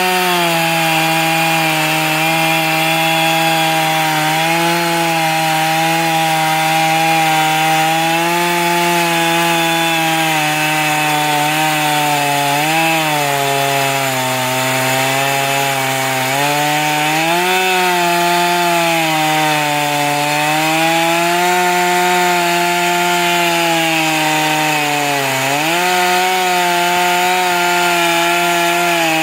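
Sawmill running steadily with a loud hum. Its pitch sags and recovers a few times, as when the saw slows under load in the cut.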